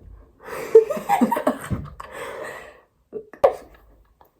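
Breathy vocal sounds from a person for about two seconds, then one sharp click.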